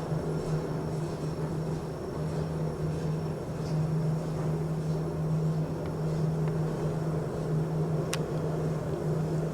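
Lift running: a steady low hum of machinery with a single sharp click about eight seconds in.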